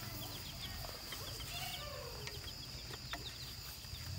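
Chickens clucking softly, with many short high peeps and a few low gliding calls, over a steady high-pitched drone.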